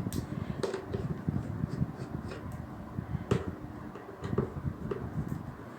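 Irregular small clicks and taps of a screwdriver and the steam iron's plastic housing being handled as its screws are undone, with one sharper click a little past halfway.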